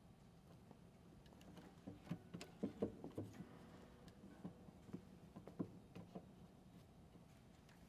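Near silence: room tone, with a scatter of faint clicks and light knocks through the middle.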